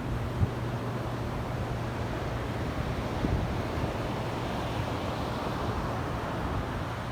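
Wind rushing over the microphone, with a steady low hum underneath and a few faint knocks.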